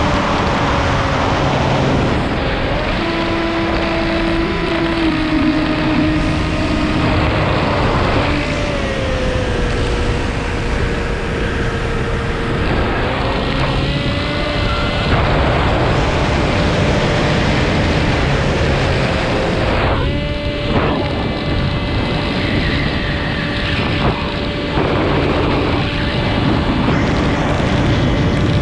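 Radio-controlled model aeroplane's engine and propeller running in flight, heard from a camera on the model itself, with heavy wind rush over the microphone. The engine note holds steady, then steps and glides up and down as the throttle changes.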